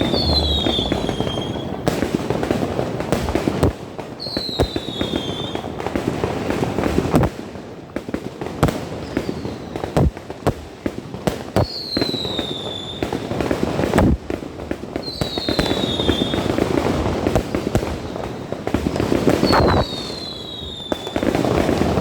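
Fireworks going off in large numbers: dense crackling merges into a continuous din, with sharper single bangs now and then. A short falling whistle recurs about every four seconds.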